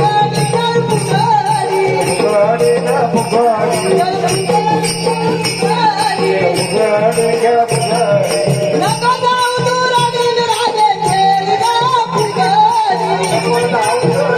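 A woman singing a Marathi devotional bhajan, her melody wavering and ornamented, over jingling hand percussion keeping a steady beat and a held low drone.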